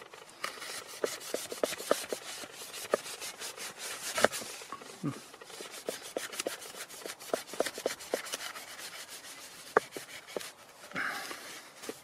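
Ganzo Firebird F708 folding knife sawing back and forth through a knot in a single climbing rope: a steady run of rasping strokes with many short crackles as the blade works through the fibres.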